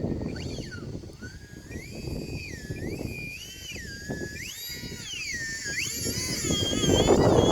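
Electric ducted fans of a micro radio-controlled A-10 jet whining in flight, the pitch rising and falling repeatedly with the throttle. Gusting wind rumbles on the microphone underneath, growing louder near the end.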